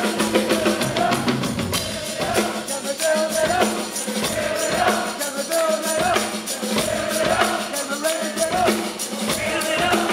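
Live rock band playing, with a male lead vocal sung over drums and guitars and a tambourine shaken and struck along with the beat.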